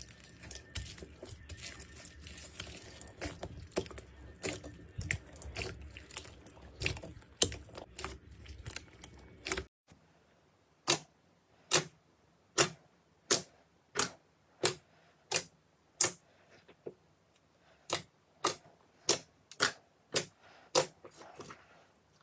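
Slime being pressed and worked, giving a dense run of small crackles and clicks. About ten seconds in this changes to sharp single clicks, roughly one every 0.7 seconds, with near silence between.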